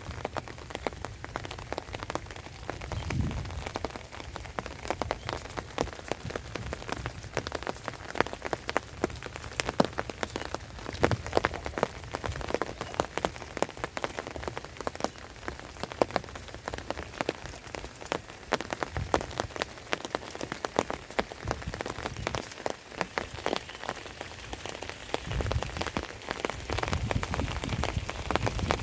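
Steady rain falling, with many sharp, distinct drop hits throughout and a low rumbling swell a few times.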